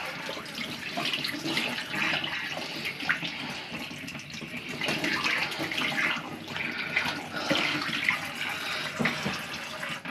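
Warm water running from a tap and splashing over a washing machine's drain-pump filter as it is rinsed clean of debris, shut off at the very end.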